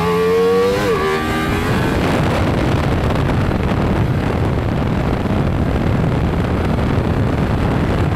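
Ducati Multistrada V4 RS's V4 engine under hard acceleration: its note climbs and drops sharply just before a second in at a gear change, then runs on at speed under heavy wind rush on the microphone.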